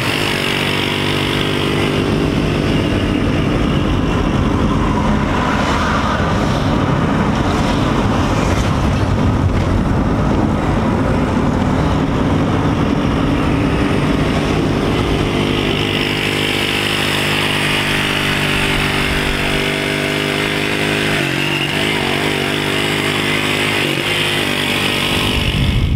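Small street motorcycle's engine running at a steady cruise right alongside, over road and wind noise. Its pitch wavers briefly near the end.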